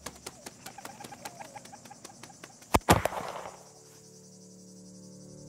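A shotgun fired at a flying dove about three seconds in: a sharp double crack with a short echoing tail.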